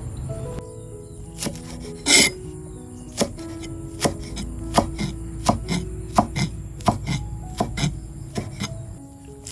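A knife chopping food on a cutting board in steady strokes, about one and a half a second, with one louder, longer hit about two seconds in. Soft background music plays under it.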